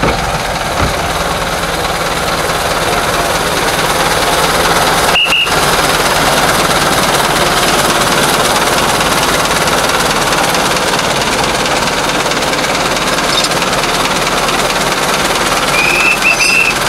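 Narrow-gauge diesel locomotive engine running close by with a loud, dense clatter. A short high squeal comes about five seconds in, and again for about a second near the end.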